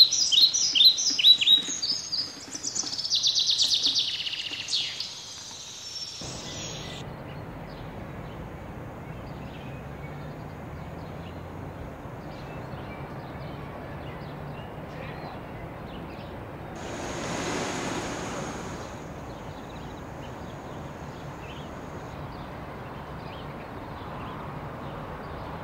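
Loud songbird calls, a run of sharp falling chirps and then a rapid trill, for the first five seconds or so. Then a steady low hum of street traffic, with a brief swell of a vehicle passing about two-thirds of the way through.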